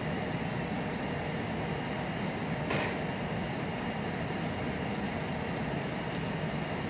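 Steady hum of room ventilation and computer fans, with a single sharp click about two and a half seconds in.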